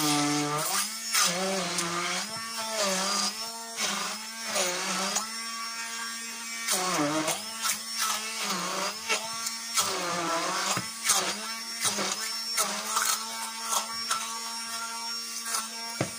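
Hand-held immersion (stick) blender running in a bowl of butter. Its motor hum sags in pitch and picks up again over and over as the blades bog down in the stiff butter, with scattered sharp clicks in the second half.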